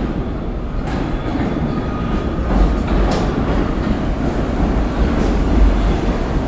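New York City subway train pulling into the station: a loud, steady rumble of wheels on rails with occasional clacks, growing louder as the cars run past close by.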